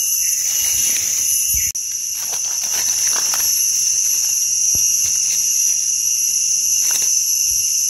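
A dense chorus of insects drones steadily at several high pitches. Faint rustles and a few soft clicks from hands working in dry leaf litter come through underneath.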